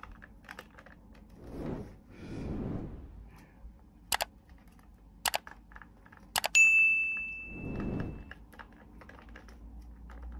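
Clicks and soft handling noises of small model parts being worked by hand. About six and a half seconds in, a sharp metallic click rings on as a clear ding for about two seconds, as a small metal part is struck or knocked.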